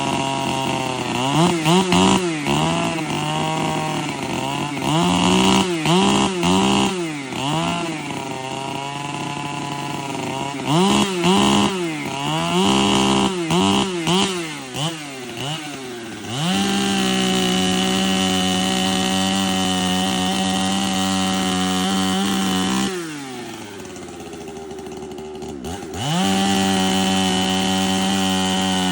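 Ported Holzfforma 395XP-clone two-stroke chainsaw, running on race gas. For about the first sixteen seconds the throttle is blipped over and over, the engine pitch rising and falling with each rev. It is then held at a steady high rev, drops briefly about 23 seconds in, and goes back up to full throttle.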